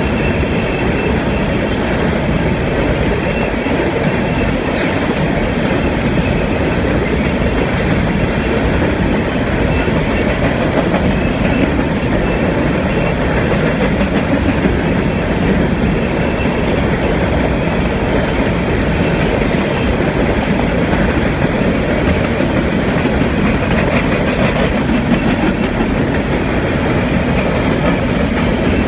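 Empty coal hopper cars rolling past on the rails: a steady, unbroken noise of steel wheels on track and car bodies rattling.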